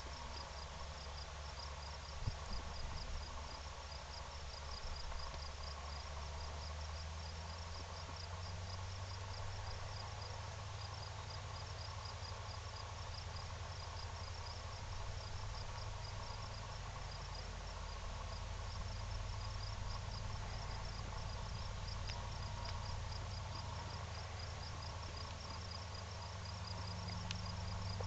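Distant low, steady hum of a Grumman Ag Cat biplane's radial engine running at idle, growing a little louder near the end. Insects chirp throughout in a fast, even rhythm.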